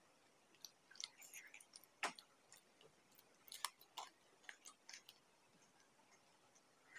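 Close-up mouth sounds of a person biting and chewing food: scattered soft crisp clicks and crunches, with one sharper click about two seconds in, as samosas and raw green chillies are eaten.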